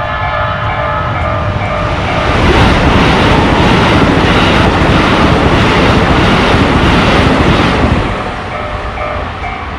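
Japanese level-crossing warning bell ringing its repeating electronic ding, then a Keikyu train passing close by for about five seconds and drowning it out. The bell is heard again near the end as the train clears.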